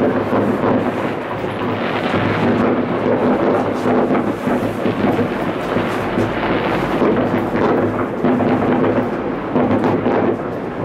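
Dense, continuous rumble and crackle of many New Year's fireworks going off across a whole city at once, with sharper bangs standing out now and then.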